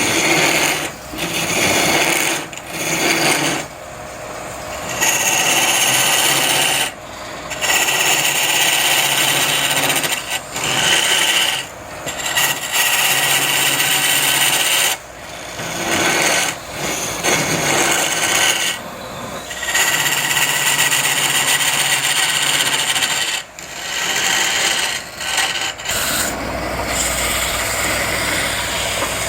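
A turning tool scraping and cutting into wood on a lathe in repeated passes of one to three seconds, with short breaks as the tool lifts off. Near the end a steady low hum comes in.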